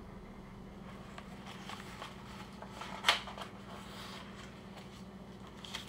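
Pages of a picture book being handled and turned, with one short papery flick about three seconds in, over a faint steady hum.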